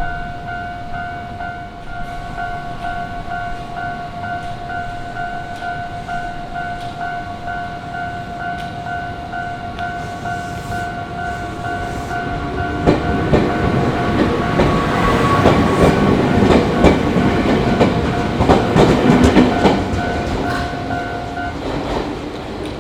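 Japanese railway crossing alarm ringing in an even two-tone 'kan-kan' about twice a second. About halfway through, a Nagareyama Line train passes over the crossing with loud wheel clatter on the rails. The alarm stops just after the train has gone by.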